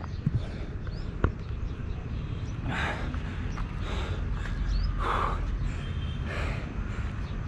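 A person breathing hard after exertion, with a heavy exhale about every second, over a steady low rumble.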